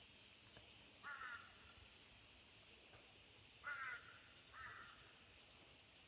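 A bird gives three short, harsh, caw-like calls: one about a second in, then two close together near four seconds, over a faint steady high hiss.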